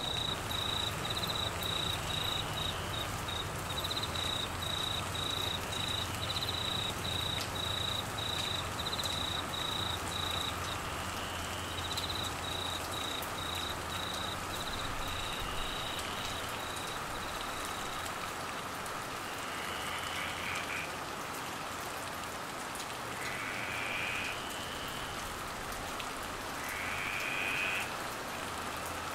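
Steady heavy rain falling on foliage and grass. A cricket chirps in a high, pulsed trill for roughly the first two thirds. Near the end three short rising calls sound a few seconds apart.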